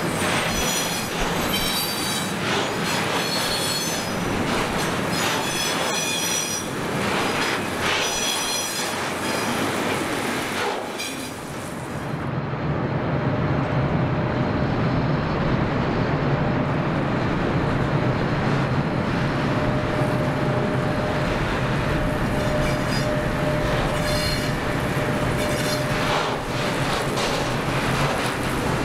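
Container freight trains passing on a curved track: steel wheels squealing in high tones and clattering over the rails. The sound dips about eleven seconds in, then a heavier low rumble with a steady hum builds as the next train comes up, and the wheel squeal returns from about twenty seconds on.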